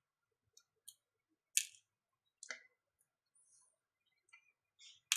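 A few faint, scattered clicks and taps of tiny screws and small tools being handled during watch reassembly, the sharpest about one and a half seconds in.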